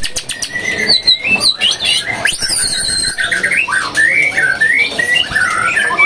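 White-rumped shama (murai batu) singing a varied run of warbled, whistled phrases, with a few sharp clicks in the first half-second.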